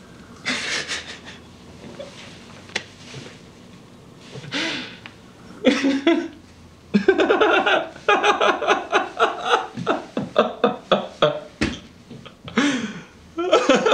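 A man breathes heavily into his hands, then breaks into a long run of laughter in quick, choppy bursts through the second half.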